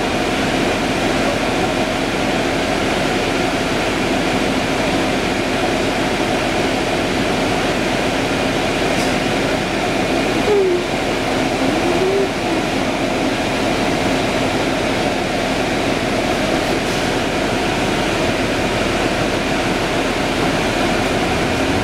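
Steady drone inside a 2011 Orion VII diesel-electric hybrid transit bus standing at a stop, with its drivetrain and ventilation running. A couple of brief faint squeaks come about halfway through.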